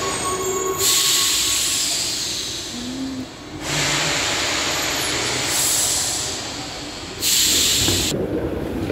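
Rome Metro train standing at the platform, its pneumatic system letting out loud bursts of compressed-air hiss: a long one about a second in, then two shorter ones, over a steady low rumble.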